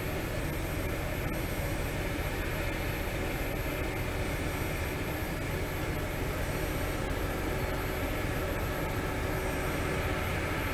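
Diesel locomotive engine running with a steady drone as it hauls passenger carriages slowly through the yard.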